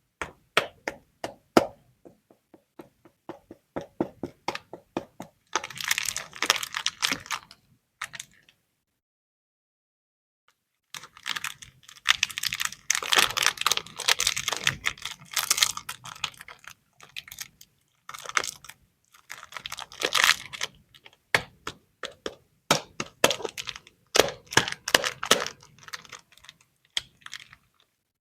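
Packaging being handled and opened: crinkling, crackling wrappers and quick clicking in bursts, with a pause of a couple of seconds about a third of the way in.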